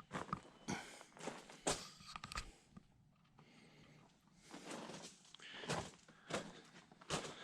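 Footsteps of a person walking, irregular steps about every half second, with a pause of a second or two near the middle.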